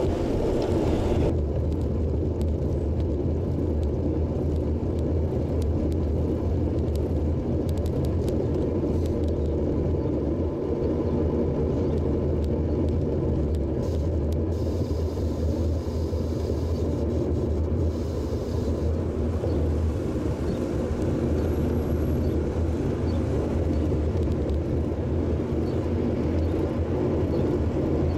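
Steady low wind rumble on a bike-mounted action camera's microphone while cycling, mixed with road and tyre noise; a higher hiss drops away about a second in.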